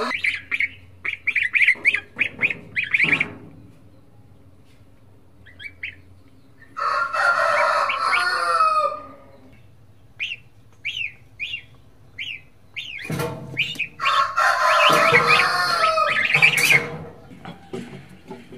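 Rooster crowing twice, once about seven seconds in and again, longer, from about thirteen seconds, with short chicken clucks and chirps in between.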